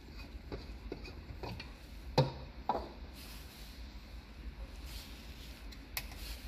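Handling of a beacon light's plastic lens cover: light clicks as it comes off, then two sharper knocks about two seconds in as it is set down, and another click near the end, over a low steady hum.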